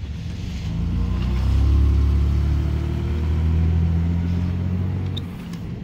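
A car's engine running close by in a parking lot, a low steady hum that swells over about a second, holds, then fades away near the end, like a vehicle moving past.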